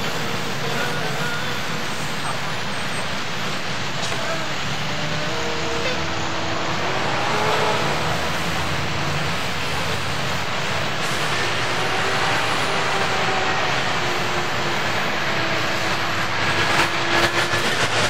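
Steady city traffic noise from trucks and cars, with a few faint wavering tones drifting over it. A short cluster of sharp clicks near the end.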